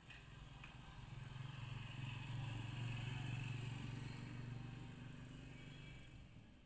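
A motor vehicle's engine passing by: a low hum that swells to a peak mid-way and then fades away.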